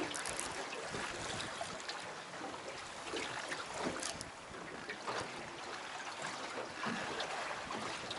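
Water lapping and slapping against a boat's hull, with wind noise and a few brief splashes.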